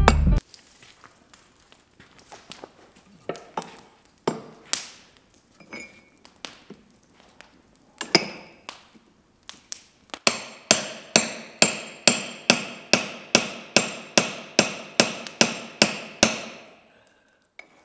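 Hand hammer striking a hot-cut chisel held on a red-hot steel bar over an anvil, cutting the bar, each blow ringing off the steel. A few scattered blows come first, then a steady run of about three blows a second for some six seconds that stops shortly before the end.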